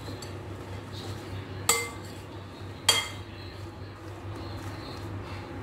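A metal spoon stirring spiced sliced okra in a glass mixing bowl, the spoon clinking sharply against the glass twice, about a second apart, a couple of seconds in. A steady low hum runs underneath.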